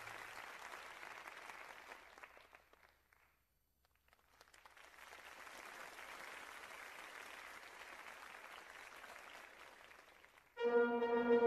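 Audience applauding, fading away about three seconds in. After a second of silence the applause comes back, and near the end orchestral music begins with a loud held chord.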